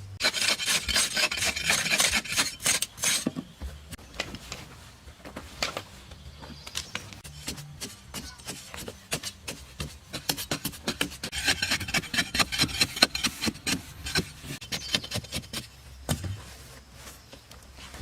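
Fast, repeated rasping scrapes of a hand tool on a rough surface, in two spells of a few seconds (at the start and again near the middle), with scattered knocks between them.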